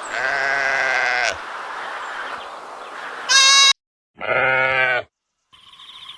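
Sheep bleating: a long bleat at the start, then two shorter bleats about three and four seconds in, separated by brief dead silences where recordings are spliced together.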